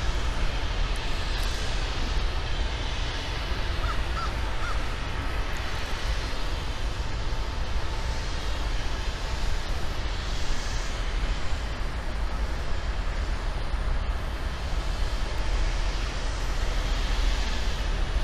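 Steady outdoor background noise with a strong low rumble, with crows cawing.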